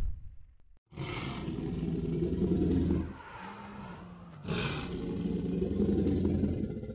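Dinosaur roar sound effects from an augmented-reality dinosaur app: a long roar starting about a second in, a short low growl, then a second long roar from about halfway on.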